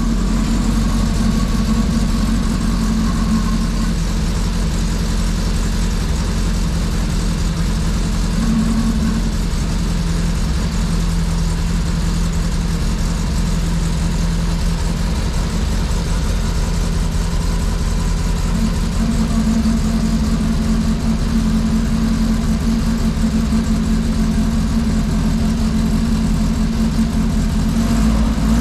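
Mk1 Ford Fiesta's turbocharged Zetec engine idling steadily through its newly made full exhaust system.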